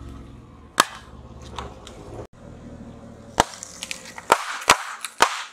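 A car tyre rolling over and crushing objects on asphalt: isolated sharp cracks, then a quick run of several cracks and pops near the end.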